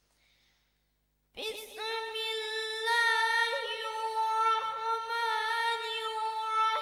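Near silence, then about a second and a half in a boy begins a solo unaccompanied Islamic chant: one long, high held note with slow ornamented turns.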